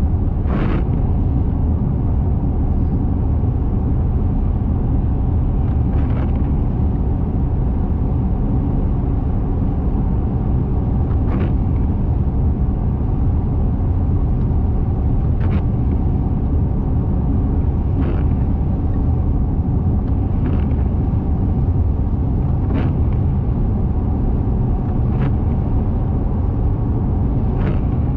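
A car driving at highway speed: steady low road and engine rumble. Faint brief sounds recur every few seconds, about five seconds apart at first and closer to every two and a half seconds later.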